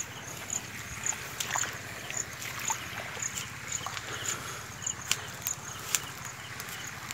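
Footsteps through shallow standing rainwater and wet grass in a waterlogged banana field, uneven steps with splashing. A faint high-pitched chirp repeats about twice a second throughout.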